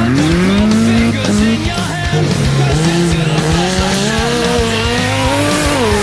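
Off-road race buggy's engine revving hard, its pitch rising over the first second, dipping, then climbing steadily before falling sharply near the end, over background music.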